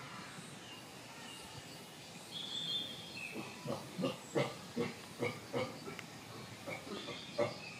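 Chimpanzee giving a rhythmic series of short grunts, about two or three a second, starting a little past the middle.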